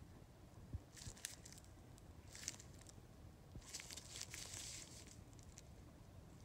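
Faint handling noise from a gloved hand turning a revolver: a few short soft rustles and light clicks, with a longer rustle about four seconds in.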